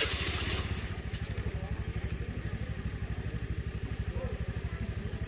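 A small motorcycle engine running at idle nearby, a steady fast low putter with a brief hiss at its onset.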